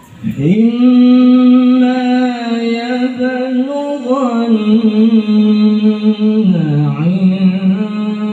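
A male qari reciting the Quran in the melodic tilawah style into a handheld microphone. The voice enters about half a second in with an upward slide, holds one long ornamented note, then dips lower about two-thirds of the way through and climbs back up.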